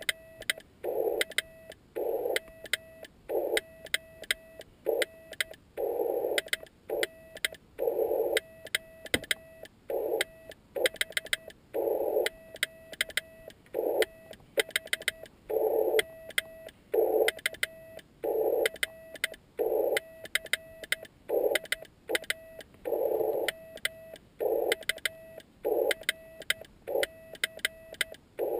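Morse code keyed in short and long elements, dots and dashes, as a tone of about 650 Hz switching on and off. Sharp clicks mark the start and end of the elements, typical of the contacts of the homemade key.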